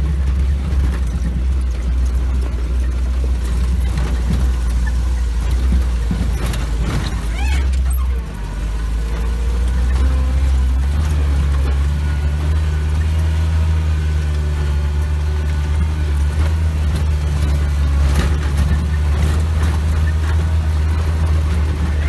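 UAZ off-road vehicle's engine running steadily under load, heard inside the cabin, as it climbs a rough dirt track. There is a brief drop in level about eight seconds in, and the engine note changes a few seconds later.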